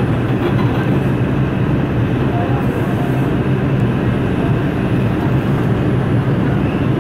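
New York City subway train running at speed through a tunnel, heard from inside the car: a steady, loud, low running noise of wheels on rail.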